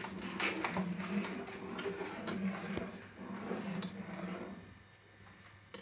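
Metal spoon scraping and clinking against the sides and bottom of a steel pot while stirring simmering milk for kheer. The scrapes come irregularly and fade out about four and a half seconds in.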